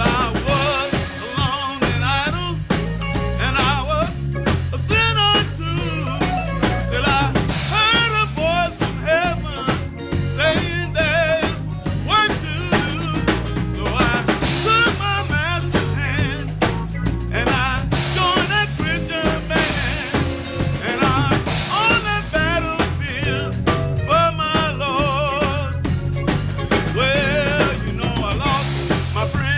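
Gospel band playing a song: a voice singing with heavy vibrato over drum kit and bass.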